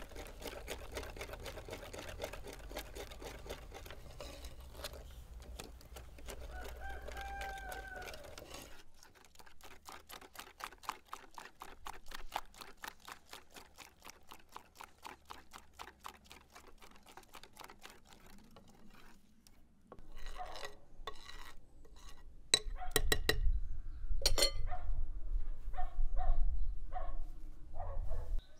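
Cooking sounds: even rhythmic clicking at about five strokes a second for some ten seconds, then louder, irregular knocks and clatter in the last third. A rooster crows once in the background about seven seconds in.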